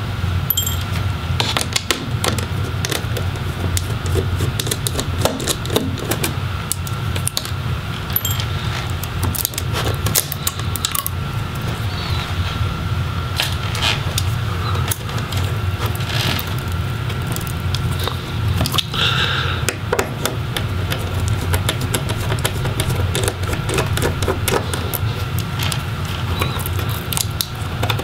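Scattered small clicks and light metallic rattles of a screwdriver, screws and small metal laptop parts being handled, over a steady low hum.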